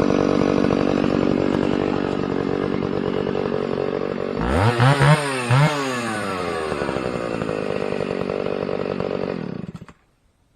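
Antique Stihl chainsaw with a 20-inch bar running steadily in the back cut of a large pine, stopping abruptly near the end. About halfway there are two or three short, louder pitched sounds that rise and fall.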